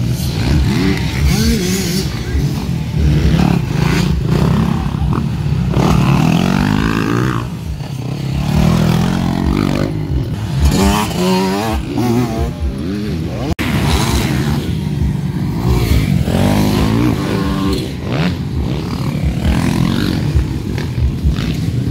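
Several motocross dirt bike engines revving hard, their pitch climbing and falling repeatedly as the riders accelerate and shift.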